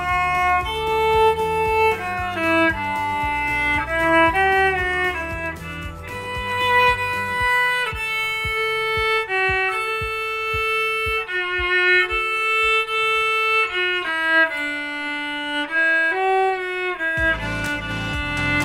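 A bowed viola plays a slow, legato melody of held notes. A low accompaniment sounds underneath; it drops out about halfway through and comes back near the end.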